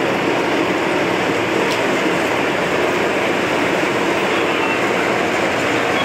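Fire apparatus running at the scene: a loud, steady mechanical drone that does not change or break.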